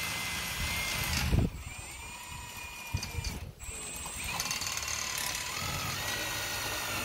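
A motor whining at a steady high pitch, cutting out and coming back at a slightly different pitch a few times. Wind gusts buffet the microphone, loudest about a second in.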